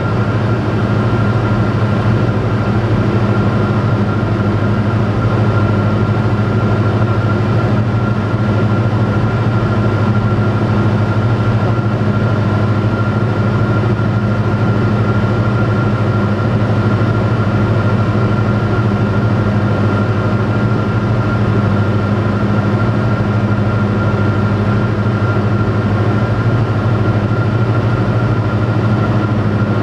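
Robin DR400 light aircraft's piston engine and propeller running steadily in cruise flight, heard from inside the cockpit as a loud, even drone with no change in pitch.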